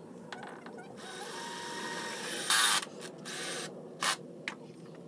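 Power drill driving tek screws up through the van's metal floor into the timber battens from beneath: a steady whine for about a second and a half, then a short loud harsh burst, a shorter second run and a brief burst near the end.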